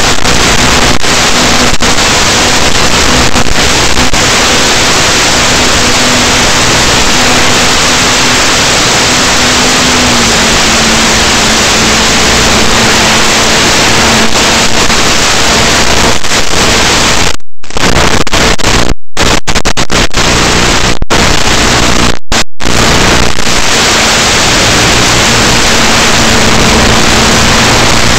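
Loud, even static hiss from an analog FPV video link's audio channel, with a faint low hum beneath that drops slightly in pitch about ten seconds in. The hiss cuts out to silence several times for a split second past the middle.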